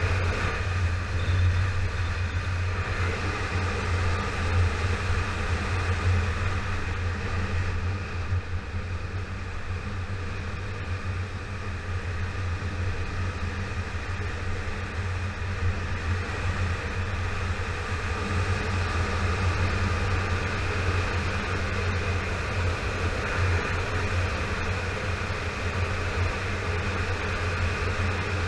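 Yamaha FZ6R's inline-four engine running at a steady cruise, heard from on the motorcycle with wind and road noise. The loudness sags slightly for a few seconds in the middle.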